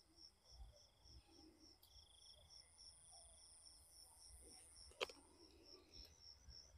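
Faint night insects, probably field crickets, chirping steadily: a pulsing chirp about three times a second over a fainter, continuous trill. A single sharp click comes about five seconds in.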